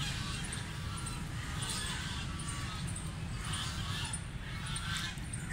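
Domestic ducks quacking in short, repeated calls about once a second over a steady low rumble.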